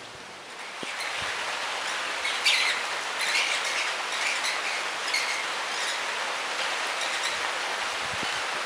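Steady rain hiss that comes up less than a second in, with birds chirping over it in short, scattered calls, the sharpest about two and a half seconds in.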